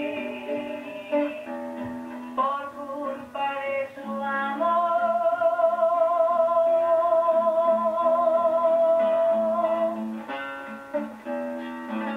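A man singing to his own acoustic guitar, holding one long note with vibrato for about five seconds in the middle, while the guitar keeps plucking underneath and picks up again near the end.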